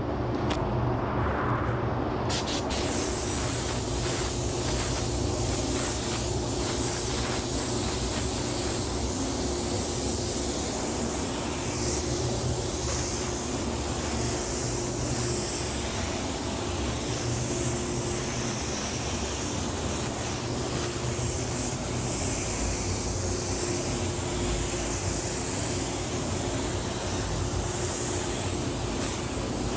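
Gravity-feed spray gun hissing steadily with compressed air as it lays down a coat of black water-based paint, starting about two seconds in. Underneath is the steady hum of the paint booth's fans.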